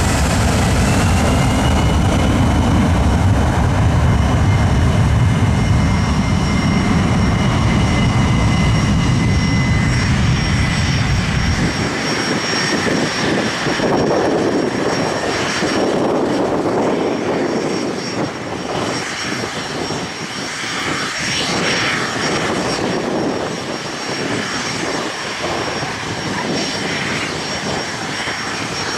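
Aircraft engines running loudly at close range: a deep rumble with a high whine that rises slightly. About twelve seconds in, the deep rumble drops away abruptly, leaving a hissing, rushing noise with a thin steady high whine.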